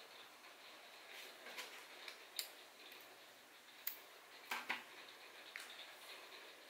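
Small scissors snipping the tag end of a fishing line knot: a few short, sharp clicks of the blades, the loudest a quick pair about four and a half seconds in, over faint rustling of the line being handled.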